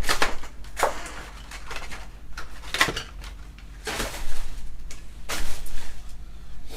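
Trading cards and pack wrappers being handled: about five short rustling, sliding swishes as cards are pulled and flipped, over a low steady electrical hum.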